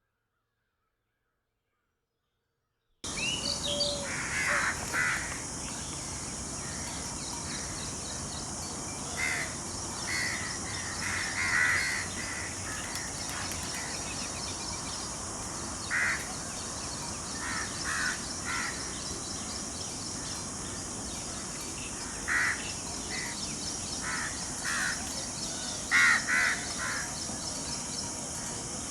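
Birds calling: short calls, singly and in small groups every few seconds, over a steady high-pitched hiss, starting about three seconds in after silence.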